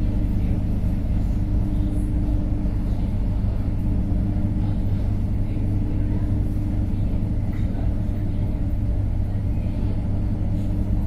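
ER9M electric multiple unit running between stations: a steady rumble of the train under way with an even, unbroken hum.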